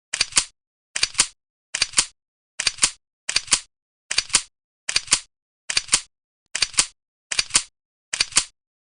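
Camera-shutter click, repeated at an even pace: a sharp double click about every 0.8 seconds, eleven times, with silence between.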